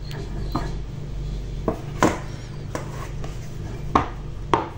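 Handling knocks of a Xiaomi Pad 6 keyboard case: its folding back cover and keyboard base clacking against each other and the tabletop, about six sharp knocks at uneven intervals over a low steady hum.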